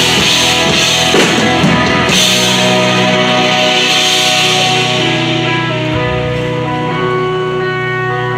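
Live rock band with amplified electric guitar. The drums and cymbals stop about two seconds in, and a held chord rings on while the cymbal wash fades away.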